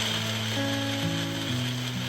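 Food sizzling and crackling in hot oil in a pan, a steady hiss, with soft background music.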